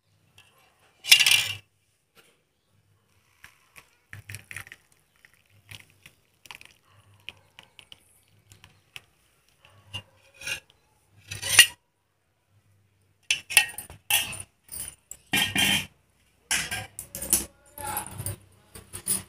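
Stainless-steel kitchenware clinking and knocking: the pot, spoon and tea strainer against a steel cup and plate as tea is strained. Scattered knocks, a loud clink about a second in, and a quick run of clinks over the last six seconds.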